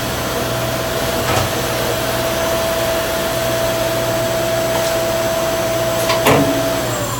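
Yang CNC lathe spindle running while a tool cuts bar stock: a steady whine over a hiss of cutting, with a couple of sharp clicks. The whine drops off just before the end.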